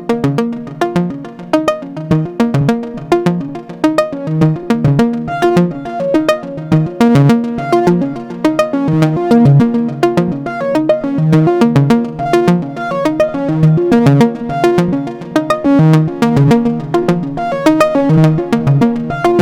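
Make Noise XPO Stereo Prismatic Oscillator, its Vari-Timbre output patched through low pass gates, playing a fast sequenced pattern of short, plucked synth notes that change in pitch from note to note.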